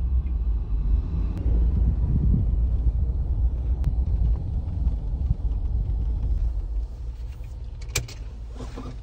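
Jeep driving, heard from inside the cabin: a steady low road and engine rumble that drops quieter about seven seconds in, followed by a sharp click.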